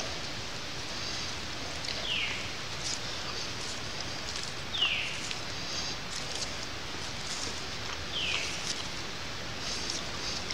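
A forest songbird repeating a single down-slurred whistle three times, a few seconds apart, over a steady background hiss.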